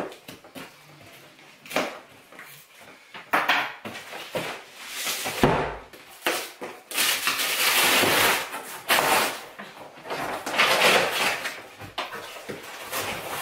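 Large cardboard shipping box being opened by hand: tape cut and torn, then cardboard flaps ripped and pulled back in long scraping, rustling stretches. A heavy thump about five seconds in as the box is laid flat on the floor.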